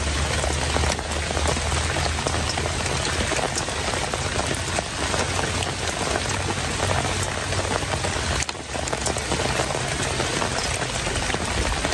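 Steady rain falling: a constant hiss with scattered sharp drop ticks.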